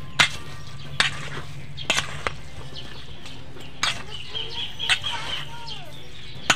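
Metal spoon clinking and scraping against a stainless steel bowl while flaked fish mixture is stirred by hand, with sharp clinks roughly once a second over a steady low hum. Faint bird chirps behind.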